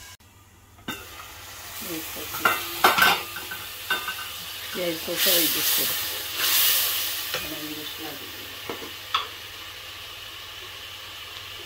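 Sliced onions and green chillies frying in oil in an aluminium pot, sizzling while a wooden spatula stirs them, with scattered knocks and scrapes of the spatula against the pot. The sizzle swells about five to seven seconds in, then settles to a steady hiss.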